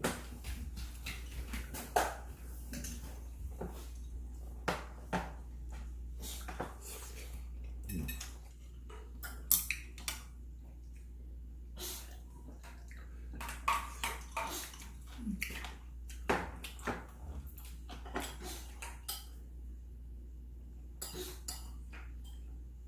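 Cutlery and dishes clinking at a meal: scattered, irregular sharp clinks of utensils against bowls and plates over a steady low hum.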